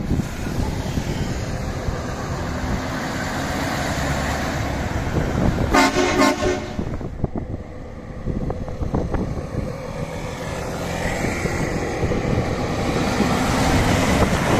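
Scania 660 S truck's V8 diesel engine running as the truck drives by, with a brief horn blast about six seconds in. The engine and road noise grows louder near the end as the truck comes close.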